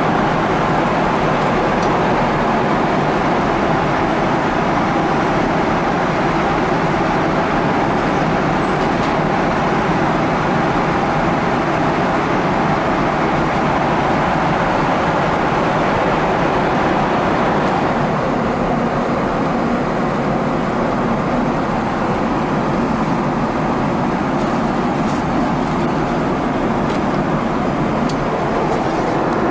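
Steady cabin noise of a Boeing 777-300ER in cruise: the even rush of airflow and engines heard from inside the cabin. A few faint clicks near the end.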